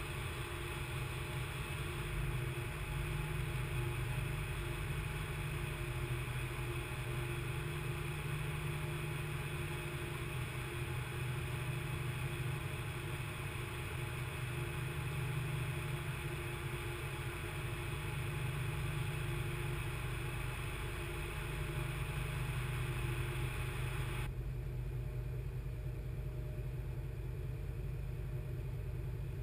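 Steady drone of a workboat's engines and machinery heard on deck, a constant low hum with a hiss over it. The higher hiss cuts out suddenly about five seconds before the end, while the low hum carries on.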